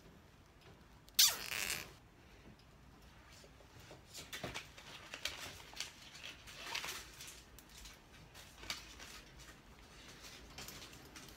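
A 250 mm nylon cable tie zipping as it is pulled tight around wire lattice panels, one sharp ratcheting rasp about a second in. Softer handling noises follow.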